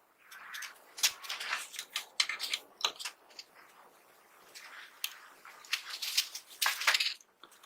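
Hand work on 1911 pistol parts: irregular scraping, rubbing and clicking, with a sharp click about three seconds in and a longer scrape near the end.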